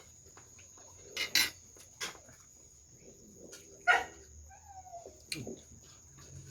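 Close-miked eating: sharp clicks and crunches of chewing and of cutlery on a plate, four or five separate strokes, with a short falling whine a little after the middle.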